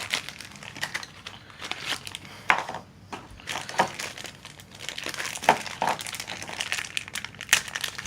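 Packaging being opened by hand and crinkled, with irregular crackling and sharp little snaps as it is torn and handled.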